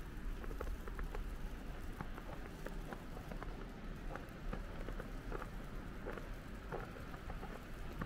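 Falling wet snow pattering on an umbrella: a steady scatter of soft, irregular ticks over a low, even background noise.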